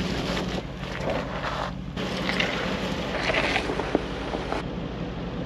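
Mercedes G-Class engine running at a slow crawl with a steady low hum, as its tyres roll and crackle over dry fallen leaves and rocks. The sound changes abruptly twice, as separate short shots follow one another.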